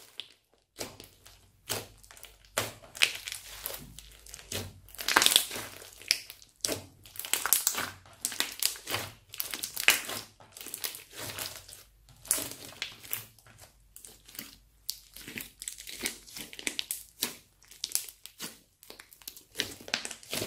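Thick crunchy slime squeezed, pressed and folded by hand, making a dense run of irregular crackling and popping.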